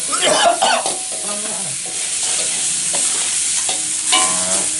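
Fried rice sizzling in a wok over a gas flame while metal spatulas stir and scrape it against the pan, with a burst of clattering scrapes in the first second.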